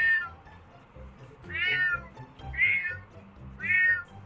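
A kitten meowing: four short, high-pitched meows about a second apart.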